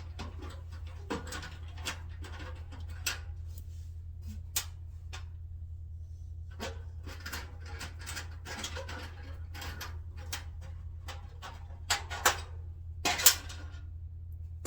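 Scattered small clicks and scrapes of hands handling screws and a small metal part during the removal of a dryer's thermal cutoff, with a cluster of louder clicks near the end, over a steady low hum.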